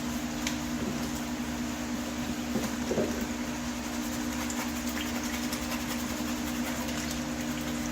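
A steady machine hum with a low drone, with a few faint clicks and scrapes over it.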